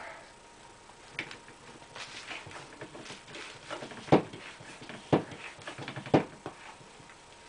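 Handling noises: scattered clicks and rustling, with three sharp knocks about a second apart in the second half.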